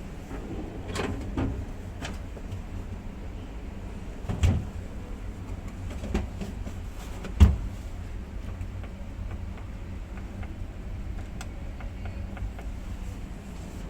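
Refrigerator doors and drawers being opened and shut, giving a series of knocks and thumps, the loudest about seven and a half seconds in, over a steady low rumble.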